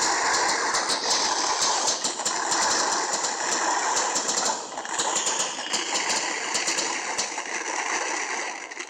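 Firework burning with a steady hiss and rapid crackling, dying away near the end.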